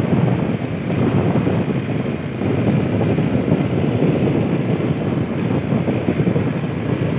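Motorcycle being ridden at speed: a steady rumble of engine and wind noise.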